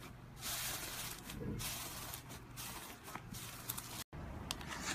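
A finger pokes and presses foamy slime, making soft hissing, crackly squishes that come in several swells of a second or less, with a short break in the sound about four seconds in.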